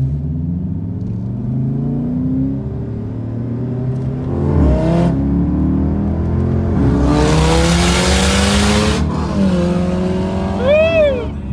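2017 Dodge Charger Daytona's 5.7-litre Hemi V8 heard from inside the cabin, accelerating hard: its pitch climbs and drops back at about three upshifts. A loud rushing hiss comes in for about two seconds past the middle, then the engine note falls away as it lets off.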